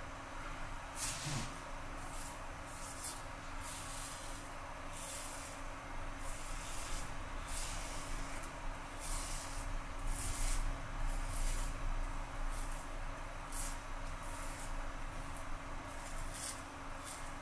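Merkur 34G double-edge safety razor scraping through lathered stubble in a string of short strokes, roughly one a second and unevenly spaced.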